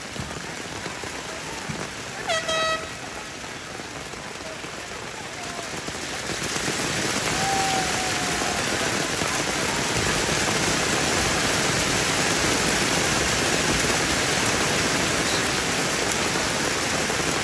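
Heavy rain falling steadily, growing louder about six seconds in. About two seconds in, a short horn-like toot sounds once.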